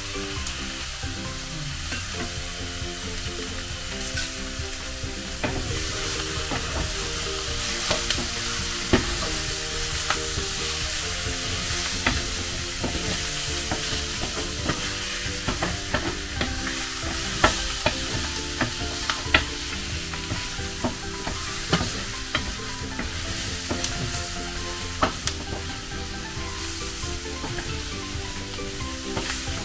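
Meat and garlic sizzling in a stainless-steel skillet while a wooden spoon stirs them, with sharp knocks of the spoon against the pan now and then.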